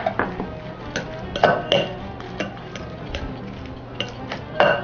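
Utensil clinking and scraping against a glass mixing bowl as chopped onion and spices are stirred together, a string of short irregular clicks.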